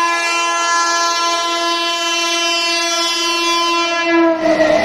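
Indian Railways locomotive horn held in one long blast as a train approaches and passes; the pitch sags and then drops sharply about four seconds in, when the rush and rumble of the passing train take over.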